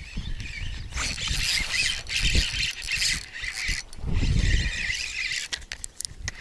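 Spinning reel whirring in three long bursts as line is wound in against a hooked fish, with sharp clicks near the end. Wind and handling rumble sit on the microphone.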